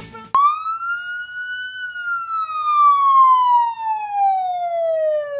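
A siren wailing: one long tone that begins abruptly, rises a little, then falls slowly in pitch for several seconds before sweeping quickly back up near the end.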